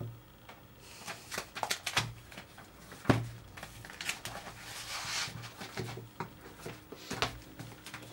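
Paper rustling and small clicks as a paperback book is handled and its pages turned, with a sharper knock about three seconds in.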